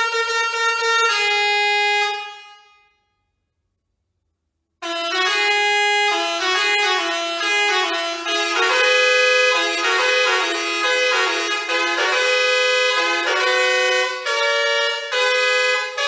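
Basuri 5.0 six-trumpet musical air horn playing a melody in changing notes; the tune fades out about two seconds in, and after a short silence another melody starts abruptly about five seconds in and plays on.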